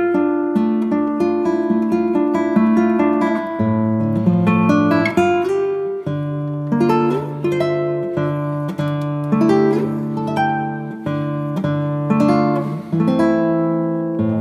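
Background music: acoustic guitar playing plucked notes.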